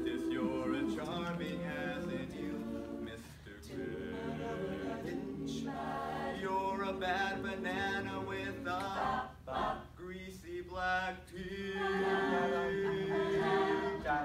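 Mixed-voice student vocal ensemble singing a cappella in harmony, with brief breaks and a long held chord near the end.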